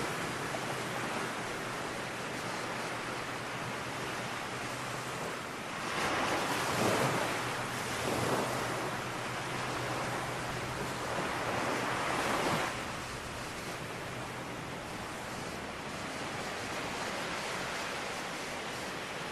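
Steady outdoor rushing noise that swells louder twice, about six seconds in and again about eleven seconds in, over a faint low hum.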